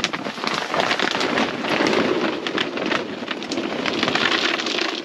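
Plastic bait packaging rustling and crinkling as it is handled, a steady dense crackle of small clicks.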